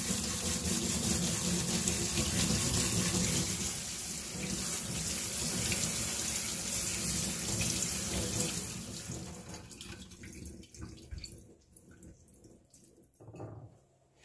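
Water running steadily, as from a tap or a pour, tapering off about nine to ten seconds in, followed by a few faint light knocks.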